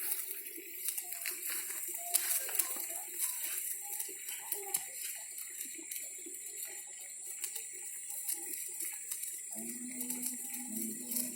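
Handheld sparkler fizzing with a constant hiss and dense small crackles, with faint voices under it and a steady low hum coming in near the end.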